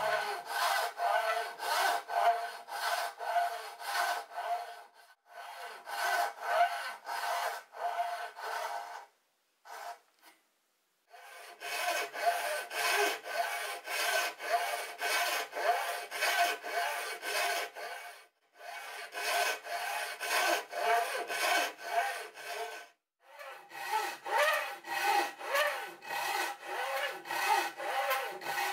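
Hand saw cutting dovetails in a Taiwan cypress board, in steady back-and-forth strokes about two to three a second. The strokes come in several runs with short pauses between cuts, the longest about nine to eleven seconds in.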